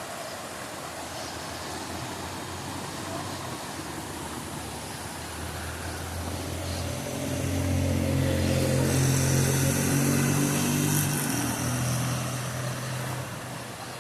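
Steady rushing water of a waterfall, with a motor vehicle's engine coming in about a third of the way through, growing loudest after the middle and fading again near the end as it passes.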